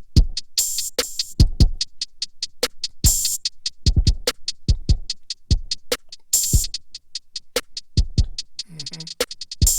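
Programmed drum-machine beat looping in Native Instruments Maschine. Deep kicks, a snare or clap hit about every three seconds, and fast steady hi-hat ticks.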